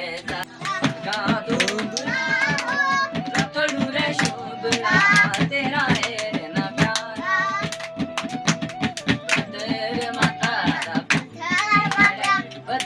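Young male voices singing a folk song together. Quick rhythmic hand claps and beats on a plastic jerrycan used as a drum keep time.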